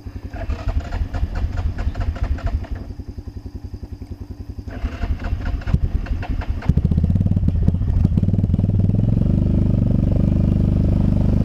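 ATV engine chugging at low revs, then revving up about two-thirds of the way through to a loud, steady drone as it works through deep mud.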